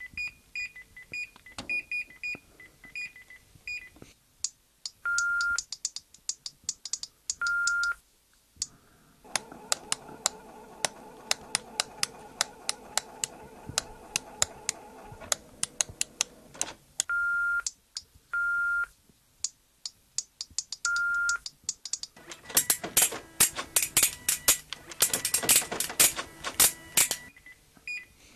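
Electronic beeps, chirps and rapid clicking used as the robotic 'speech' of talking household appliances. There is a run of short high chirps, several held single-pitch beeps, and a long, dense stretch of fast clicks near the end.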